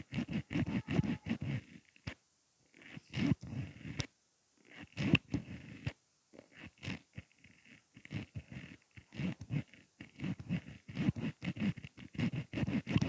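Mascara wand being pumped in and out of its tube, a fast irregular run of small clicks and pops that stops briefly a few times.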